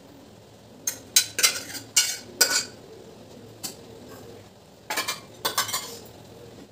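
Steel spoon scraping and clinking against stainless steel pots as thick curry is spooned out of a pressure cooker into a steel vessel. The clinks come in a cluster about a second in and again around five seconds.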